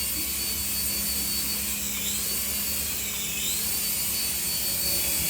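Steady high-pitched whine and hiss of a remote-control toy running, its pitch dipping briefly and recovering twice.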